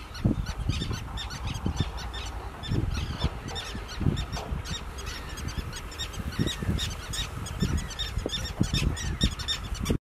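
Common tern colony calling: many short, high, harsh calls overlapping throughout, over irregular low rumbles.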